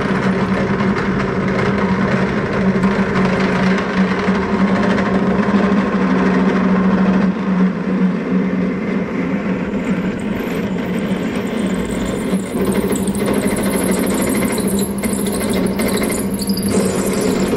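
Pillar drill running with a steady hum while its bit is fed down into a stepped pulley, drilling a hole through it.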